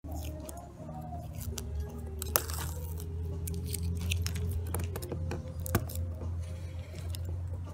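Masking paper being cut and torn off a freshly painted plastic ATV panel with a blade: scattered scratches, crackles and a few sharp clicks over a steady low hum.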